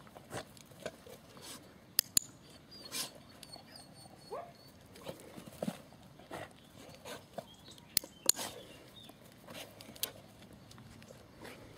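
A dog making a few brief whimpers. Two pairs of sharp clicks are louder than the whimpers, one pair about two seconds in and another about eight seconds in.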